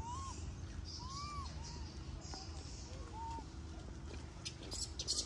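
A few short high calls, each rising then falling in pitch, from an animal, with a cluster of sharp clicks near the end.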